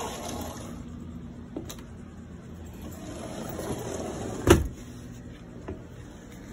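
A single sharp knock about four and a half seconds in, over low rustling, with a couple of fainter clicks.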